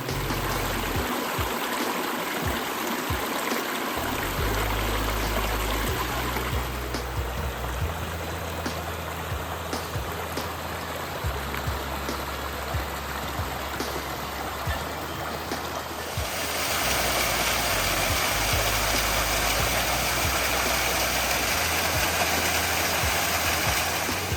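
Running water of a mountain stream, a steady rush that gets louder and brighter about two-thirds of the way through, with background music underneath.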